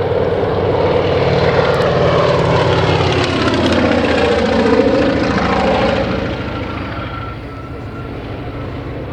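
Antonov An-2 biplane's nine-cylinder Shvetsov ASh-62 radial engine and propeller in a close flypast. The sound builds, drops in pitch as the plane passes about four to six seconds in, then fades away.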